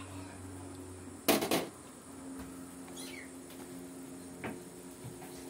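A metal ladle clatters once, briefly, as it is set down beside a wok of simmering chicken soup, over a faint steady hum.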